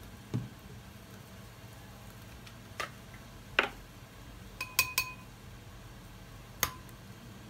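About six separate light clinks and knocks of kitchen things being handled: a metal spoon in a small glass bowl, and a squeeze bottle and a jar set down and picked up on the table. A pair of clinks about five seconds in rings briefly, like glass being struck.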